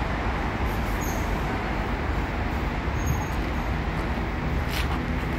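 Steady low rumble of outdoor street and traffic noise, with a short rustle about five seconds in.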